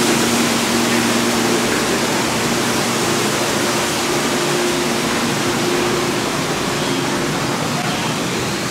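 Steady, loud rushing hiss of falling water, with no separate splashes or strokes.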